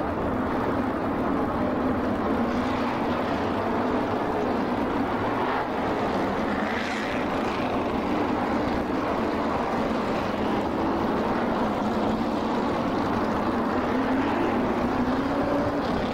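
NASCAR Modified race cars' V8 engines running at speed in a steady drone of several engines at once, their pitch wavering as cars pass and rising near the end.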